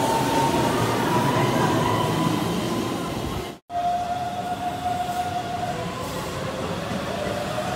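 Keihan electric commuter trains running along a station platform: a steady electric motor whine over running noise, slowly rising in pitch as the train gathers speed. It cuts off abruptly a little over three seconds in, and after it a second train's whine starts, with a second tone rising in pitch near the end.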